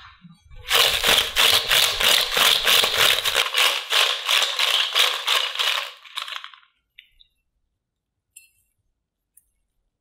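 Crisp fried potato roll chips shaken in a glass mixing bowl to coat them with cheese powder: a loud, dense dry rattle that starts about a second in and stops after about six seconds, followed by a few light clicks.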